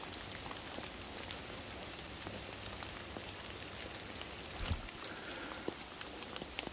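Light rain pattering in wet woods: a steady hiss with scattered drip ticks, and a soft thump about four and a half seconds in.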